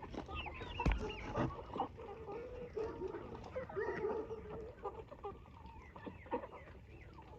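A flock of chickens clucking and calling over one another, with a single knock about a second in.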